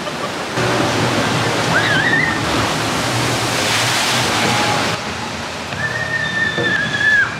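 Rushing, splashing water of a log flume channel. A steady high tone is held for over a second near the end.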